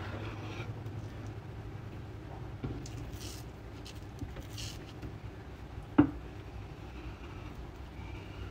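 Kitchen knife trimming a raw fish fillet on a wooden cutting board: quiet slicing and handling sounds, with brief scraping hisses in the middle and one sharp knock on the board about six seconds in.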